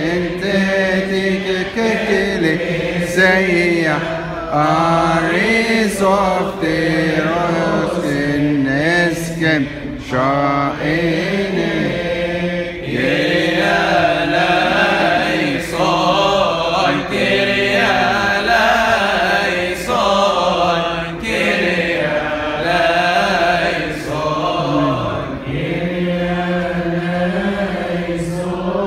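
Coptic Orthodox liturgical chant sung by men's voices, led by a priest at a microphone and joined by deacons, in long, winding held notes sung together on one melody line.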